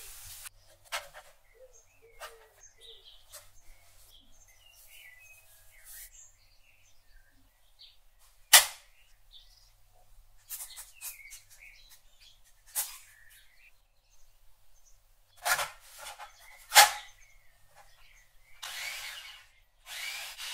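Hard plastic clicks and knocks as a food processor bowl is loaded with fish and shrimp and its lid fitted, the loudest at about eight seconds and again twice near sixteen seconds. Near the end the food processor's motor pulses once, then starts running steadily with a whir and a thin whine, chopping the fish and shrimp.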